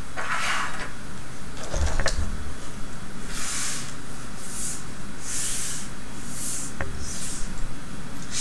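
Plastic kit parts and containers being handled and slid around on a workbench: a string of short rustling swishes, about one a second, with a couple of light clicks.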